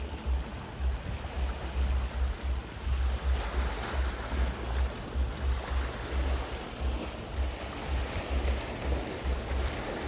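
Small waves lapping and washing over rocks at the water's edge, a steady rushing splash. Wind buffets the microphone in an uneven low rumble throughout.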